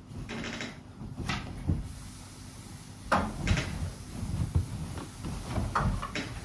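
A run of sharp household knocks and clunks, like cupboard doors and objects being handled, with a short hiss early on; the strongest knocks come in a pair about three seconds in and another pair near the end.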